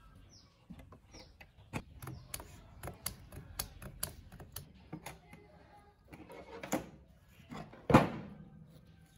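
Clicks and knocks of an old Krex electric wood planer being handled and shifted on a wooden workbench, with one louder knock near the end.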